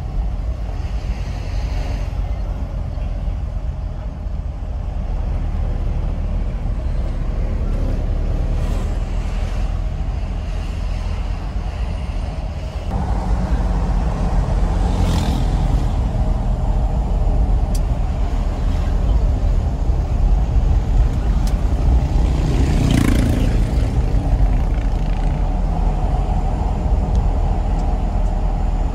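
Diesel engine of a Mitsubishi Canter minibus running as it drives, heard from inside the cab as a steady low rumble. It grows louder a little before halfway through, and two short hisses come later.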